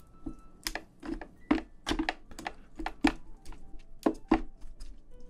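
A spoon pressing and mixing rice inside the shell of a soy-sauce-marinated raw crab (ganjang gejang), knocking and scraping against the shell: a run of short, uneven clicks, two or three a second.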